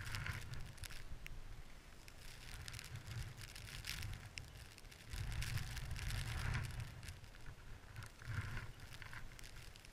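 Wind gusting over a head-mounted camera's microphone, rumbling in uneven surges, strongest about halfway through. Light rustling and scraping of clothing and gear come and go with it.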